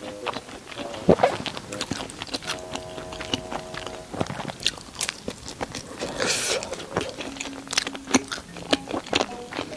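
Close-miked eating: biting and chewing food with many small wet clicks and smacks. A brief steady hum-like tone sounds between about two and a half and four seconds in, and a short hiss about six seconds in.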